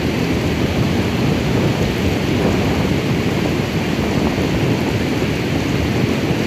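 Steady, loud rush of fast whitewater river rapids.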